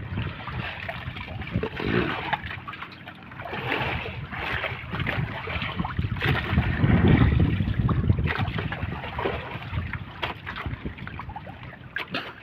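Wind buffeting the microphone over water sloshing against a small boat's hull, rising and falling in surges, with a few sharp knocks near the end.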